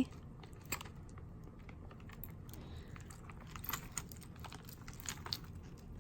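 Pieces of costume jewelry clicking and clinking against each other as they are handled and sorted: scattered, irregular light taps.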